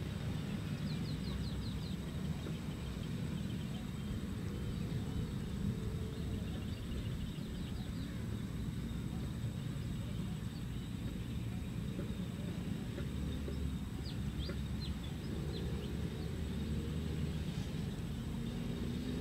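Evening outdoor ambience: a low steady rumble, with birds giving short rapid series of high chirps a few times.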